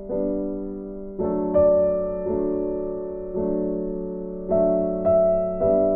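Background music on a keyboard: chords struck one after another at a slow pace, each ringing out and fading before the next.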